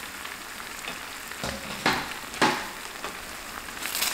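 Thick black bean sauce sizzling in a stainless steel frying pan, just thinned with poured-in water. Three sharp knocks come around the middle, and a louder burst of sizzling comes near the end as the sauce is stirred.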